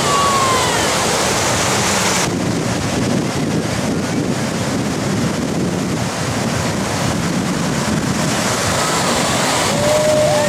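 Ocean surf breaking and washing through the shallows, steady throughout, with wind buffeting the microphone. A voice calls out briefly at the start and again near the end.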